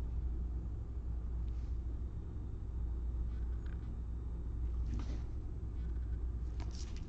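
Steady low background hum, with a few faint, brief scrapes and clicks of trading cards being handled and shuffled by gloved hands.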